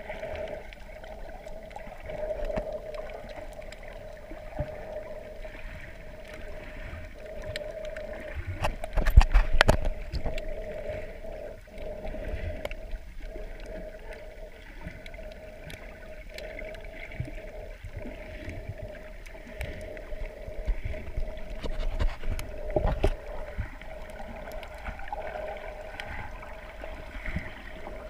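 Muffled underwater sound picked up by a camera in shallow sea water: a steady hum with a faint crackle, and strong low thumps about nine seconds in and again near twenty-three seconds.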